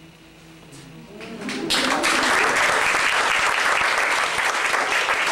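Audience applauding, starting about a second and a half in and quickly swelling into loud, steady clapping.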